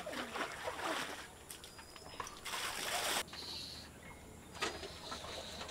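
Water splashing and sloshing as a metal bucket is dipped into a well, with a louder rush of splashing water about two and a half seconds in. A few short, high bird chirps come through.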